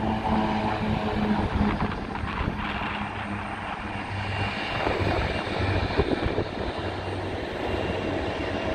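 Beech C-99 Airliner's twin Pratt & Whitney PT6A turboprops at takeoff power as the plane lifts off and climbs away. The pitched propeller drone fades after about two seconds, leaving a steady rumble.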